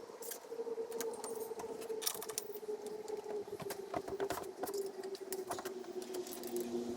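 Mountain bike rear hub's freewheel buzzing as the wheel spins free, its pitch sinking slowly as the wheel slows, with clicks and metallic rattles as the wheel is handled and taken off.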